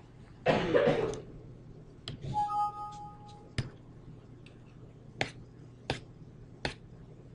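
Computer mouse clicking: four single sharp clicks, under a second apart, in the second half. Before them come a brief indistinct noise and a short steady tone.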